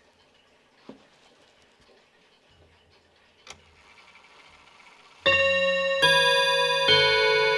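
Eight brass chime rods of a French MK wall clock struck by its chime hammers. After a faint stretch with a couple of small mechanical clicks, the chime starts about five seconds in: three strikes roughly a second apart, each note ringing on under the next. The sound is deep, warm and resonant.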